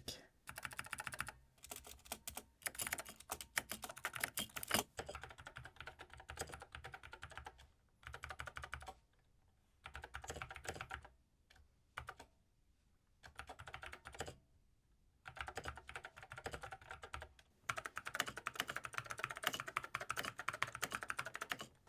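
Typing on a mechanical keyboard with Kailh switches made for the Amiga 1200, sitting in an empty A1200 case: quick runs of key clicks broken by short pauses, with some resonance from the hollow case.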